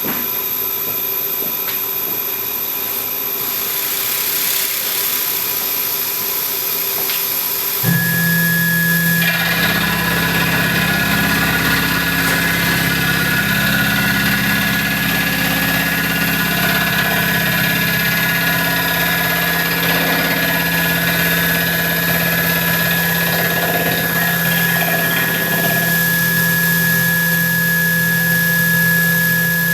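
Tormach PCNC 1100 CNC mill facing the side of a 6061 aluminum block with an 11/16-inch high-speed steel end mill at about 1,000 RPM. A steady hiss at first. About eight seconds in, a steady whine and low hum start, and a second later the noise of the cut joins and runs on steadily.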